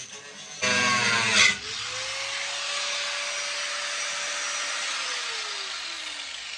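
A power grinder spins up about half a second in, then grinds steadily through a metal anchor point fastened to the van's floor, a harsh continuous grinding noise. Its tone drops in pitch near the end as the tool slows.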